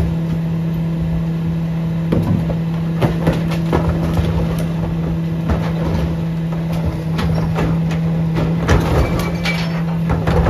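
Curbtender Mini rear-loader garbage truck running with a steady low hum while recyclables and plastic bins clatter and knock as they are dumped into its rear hopper.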